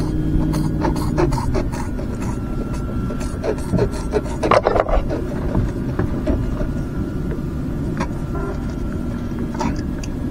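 Rubbing and scraping handling noises with scattered sharp clicks, busiest about halfway through, over a steady low rumble of wind on the microphone.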